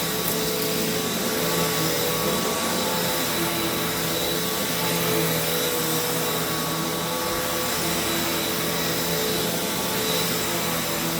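Hoover Taskvac commercial bagged upright vacuum running steadily, a continuous motor hum and whine with a faint high tone.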